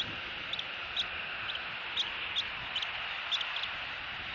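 Rain falling steadily, with scattered short, high ticks throughout.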